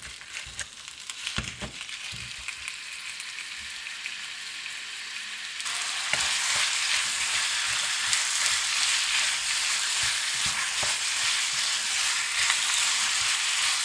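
Minced beef sizzling as it browns in a hot non-stick wok, with a few knocks of a metal potato masher at first and then stirring with a wooden spatula. The sizzle turns abruptly louder a little before halfway through.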